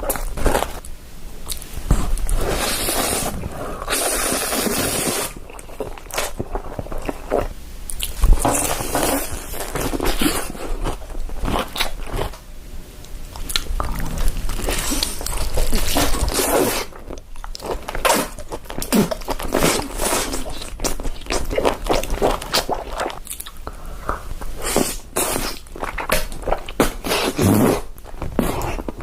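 Close-miked eating sounds: repeated crunchy bites and chewing, many short crisp crunches at an irregular pace.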